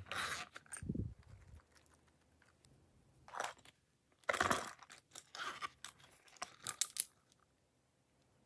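Hands handling small plastic novelty coin purses: short bursts of crinkling, rustling and clicking, with a dull thump about a second in and a dense run of crackly handling noise in the second half.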